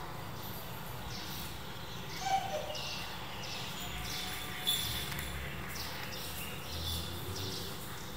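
Steady background noise with short, high chirps repeating every second or so.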